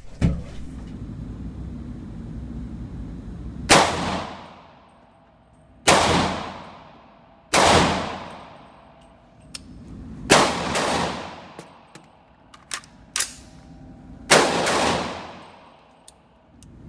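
A 300 Blackout 8.5-inch AR-15 pistol fired five times at an irregular pace, each shot followed by a long echoing decay. Several fainter sharp cracks fall between the later shots.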